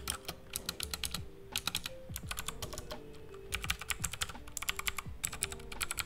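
Typing on a Cosmic Byte CB-GK-16 Firefly mechanical keyboard, heard close up: rapid key clicks in quick bursts with short pauses between them.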